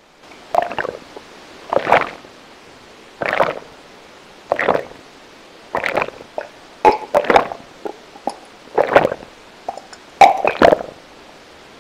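A person gulping down a drink from a mug, about eight swallows at an even pace, roughly one every second and a half.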